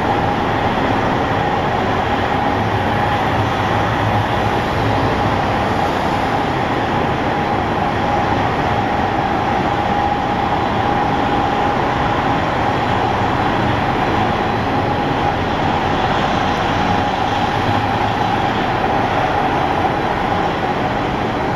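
Steady machinery noise at an even level, with a constant high hum running through it.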